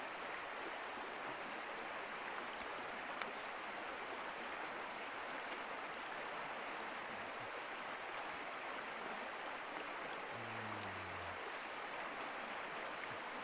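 Steady rushing of a stream flowing over rocks, with a few faint clicks.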